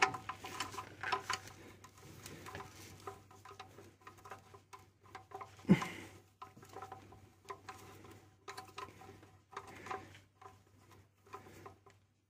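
Socket wrench turning an oil-pan drain plug in short strokes, with light, irregular clicking and rattling of the ratchet and socket and one sharper click about six seconds in.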